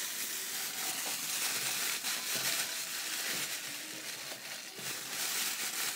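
Plastic bag of crushed ice crinkling and rustling steadily as it is squeezed and shaken, the ice stuck inside and not coming out.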